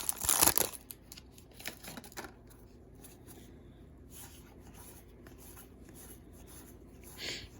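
Trading cards being handled: a loud rustle of the foil pack wrapper at the start, then faint soft slides and flicks of cards against each other, with one short swish near the end.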